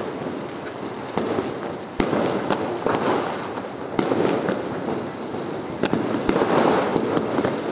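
Diwali fireworks going off: a string of sharp bangs and pops at irregular intervals, the loudest about two seconds in and again at four seconds as an aerial shell bursts, over a steady background din.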